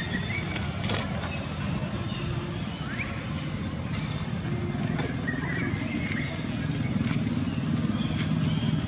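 Baby monkey giving short, high squeaks every second or so, over a steady low rumble.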